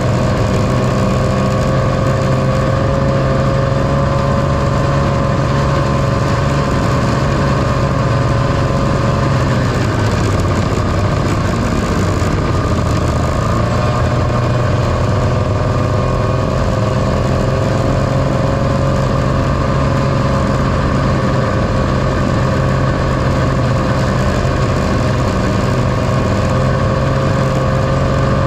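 1978 John Deere Liquifire snowmobile's two-stroke engine running at a steady cruise, easing off briefly about ten seconds in and then pulling back up to speed.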